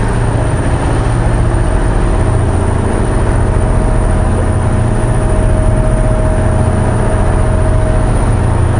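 Boat's engine running steadily under way, a deep drone heard on board, with a faint steady whine above it that stops about eight seconds in.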